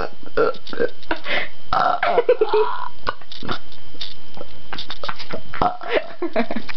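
A young woman deliberately burping: a long, loud run of rough burps with hardly a break.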